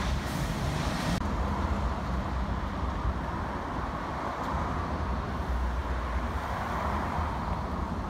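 Wind rumbling and buffeting on the microphone over steady street traffic noise. A brighter hiss of passing traffic fades out about a second in.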